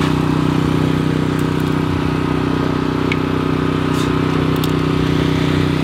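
Engine idling steadily at an even pitch, with a few faint clicks over it.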